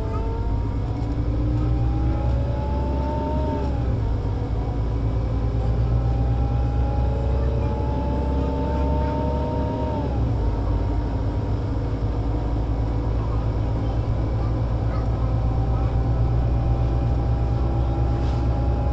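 Solaris Urbino 18 IV articulated bus, DAF diesel engine with Voith Diwa 6 automatic gearbox, accelerating under way: a low engine rumble under a rising whine that drops back at each upshift, about three and a half seconds in and again about ten seconds in, then climbs slowly on.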